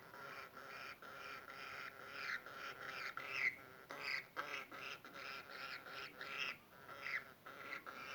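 Budgerigar chattering: a continuous run of quick, short warbled notes with brighter chirps mixed in, a few louder ones around the middle.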